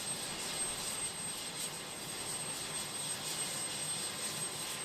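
Steady aircraft engine noise: an even rushing hiss with a thin high whine above it.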